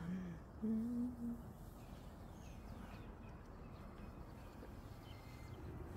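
A woman hums one short, steady note for about a second, soon after the start. Then there is only faint outdoor background.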